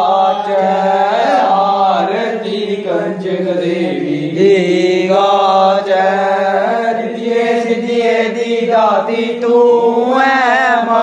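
Devotional aarti hymn to the goddess being sung: a voice holding long, wavering notes over a steady low drone.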